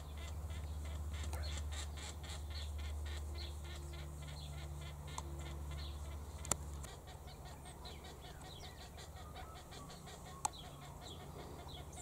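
Rapid, regular high chirping, about four a second, strongest for the first six seconds and then fainter, over a low steady hum that stops about seven seconds in. Two sharp clicks come later.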